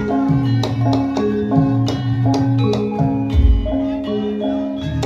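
Music with struck, ringing mallet-percussion notes over held tones and drum strokes, with a deep drum thump about three and a half seconds in.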